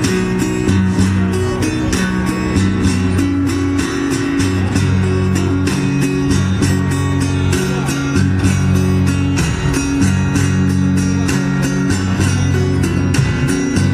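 Blues band playing an instrumental passage: guitar over a walking bass line and a steady beat.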